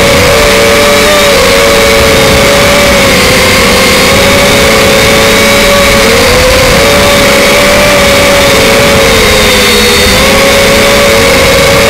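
Steady whine of the RC Leading RC126's small electric motors and propellers in flight, heard loud and close from the model's onboard camera. Two close tones waver up and down together as the throttle shifts.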